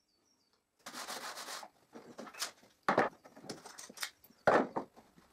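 A short scrape, then several sharp wooden knocks and clatters as a handsaw, a bar clamp and cut-off pieces of the tabletop are handled and set down on a wooden workbench.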